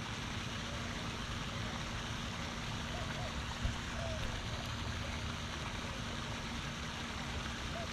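Steady rushing noise of the pond's splashing fountain and wind, with a low buffeting rumble. A single sharp knock about three and a half seconds in, and a few faint short chirps now and then.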